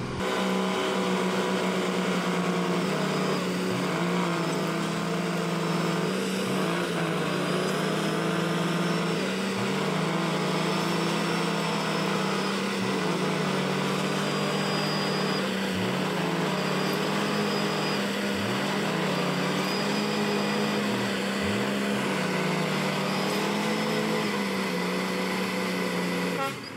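Heavy bus engine running hard under load as the bus tries to drive out of deep mud, a steady drone whose pitch dips briefly and climbs back again several times.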